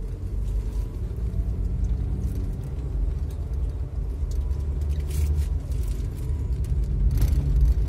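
Car driving, heard from inside the cabin: a steady low rumble of engine and road noise. There are brief louder rushes of noise about five and seven seconds in.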